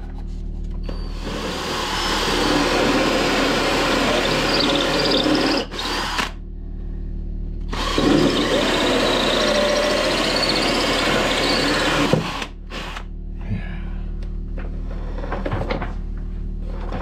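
Cordless drill with a hole saw cutting a hole through a painted boat panel, in two long runs with a short pause between them about six seconds in. The cutting stops about twelve seconds in.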